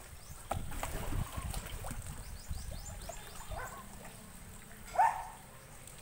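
River water lapping and trickling around people wading and diving, with a few faint quick high chirps and one short, loud high-pitched call about five seconds in.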